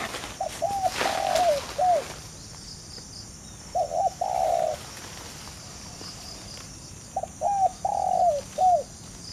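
Spotted dove cooing: three phrases of several arched coo notes, a few seconds apart.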